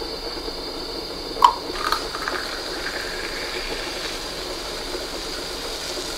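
Liquid poured into glass champagne flutes, then Canada Dry ginger ale fizzing and foaming up in them as a steady hiss. A short, sharp clink sounds about one and a half seconds in.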